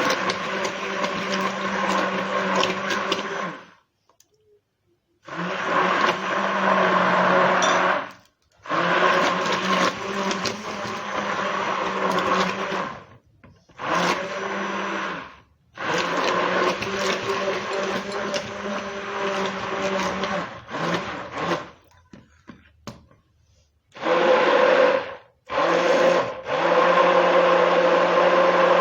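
Handheld electric mixer running in a series of short runs of a few seconds each, stopping briefly between them, as it beats an egg into cake batter.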